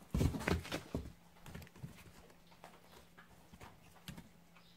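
Rustling and quick thumps of a kitten scrambling through dry straw and cardboard, loudest during the first second, then only a few faint scattered rustles.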